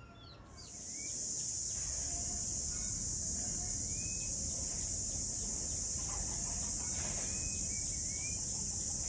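A loud, steady, high-pitched insect drone from a chorus of insects, coming in about half a second in and holding level. Several short rising bird chirps sound over it.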